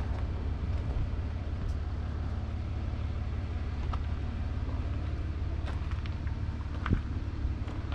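Claas Arion 650's 6.8-litre six-cylinder diesel engine idling steadily. There are a few faint clicks, and a sharper knock about seven seconds in.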